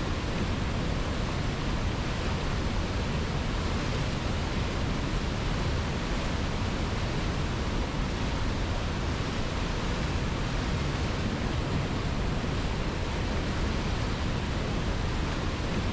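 River water rushing steadily, an even unbroken noise with no distinct splashes.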